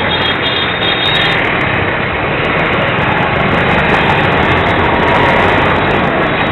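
Busy street traffic heard close up: motorcycle, scooter and auto-rickshaw engines running, a dense steady rumble. A high pulsing beep sounds for about the first second, then stops.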